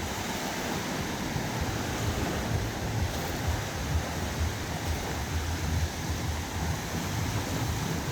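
Wind buffeting the microphone in uneven gusts over a steady wash of sea surf on the beach.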